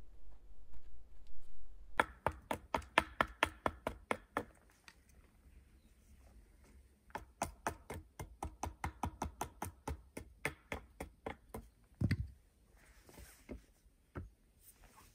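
Quick runs of sharp knocks on wood, about five a second, starting about two seconds in and again from about seven seconds in, with one heavier knock near the end, as a wooden pole chair frame is worked by hand.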